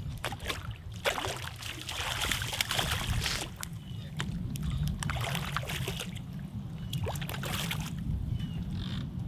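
A hooked seatrout splashing and thrashing at the water's surface on the line, in two spells of splashing, the first starting about a second in and the second near the end, over a steady low rumble.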